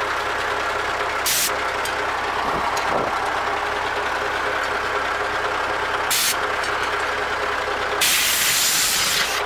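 A compressed-air blow gun hisses in short blasts about a second in and about six seconds in, then a longer blast near the end, as it blows packed debris out of the clogged radiator core of a Fortschritt E303 mower. Under it, an engine idles steadily.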